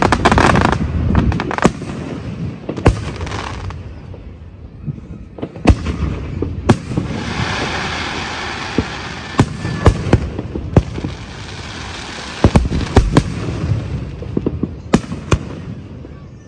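Aerial fireworks display: shells bursting in sharp bangs every second or two, with a rumble in between and a stretch of hissing from about seven to nine seconds in.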